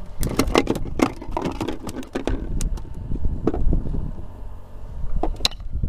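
Handling noise on a fishing boat: a quick run of sharp clicks and knocks in the first couple of seconds and a few more near the end, over a steady low rumble.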